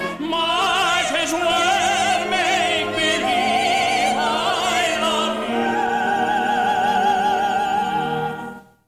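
Operatic-style stage singing, a man's and a woman's voice in a duet, with strong vibrato over an orchestra; it fades out shortly before the end.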